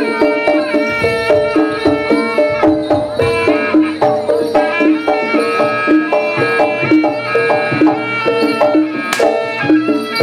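Javanese gamelan accompaniment for a jaranan horse dance: a fast, steady, repeating melody of tuned percussion over hand drums. A single sharp crack cuts through about nine seconds in.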